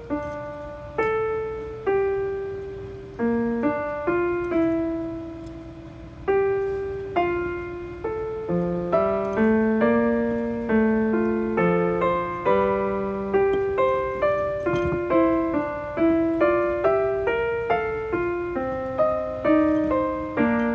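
Background piano music: a calm melody of single struck notes that each fade out, over a slower lower line.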